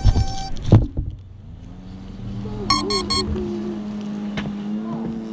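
Two knocks as the FPV quadcopter comes down onto the ground, then a steady motor hum that rises slightly in pitch, with three short electronic beeps about three seconds in.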